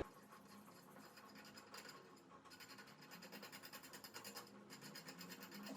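Faint, rapid scratching and ticking as metal hardware, washers and a bolt, is fitted by hand onto the feeder.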